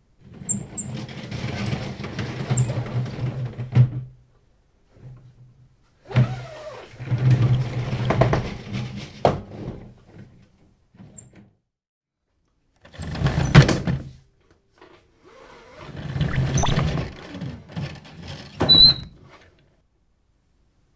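Slatted roller shutter being run in its guides, its slats rattling and clattering, in four separate runs with short pauses between and sharp knocks in the middle and near the end.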